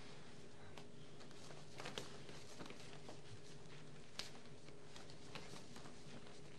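Faint hall ambience with a steady hum and scattered soft taps and clicks. The sharpest come about two seconds in and again about four seconds in.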